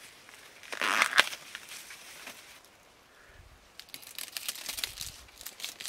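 Dry maize leaves and husks rustling and crackling as a cob is snapped off the stalk, with one sharp crack about a second in. Lighter crackling rustles of the leaves follow near the end.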